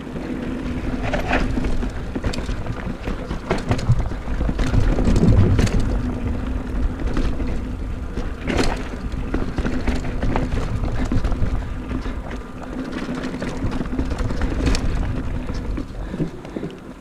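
Mountain bike being ridden over a rough trail descent: a constant rumble of tyres and frame, broken by many sharp knocks as it hits bumps.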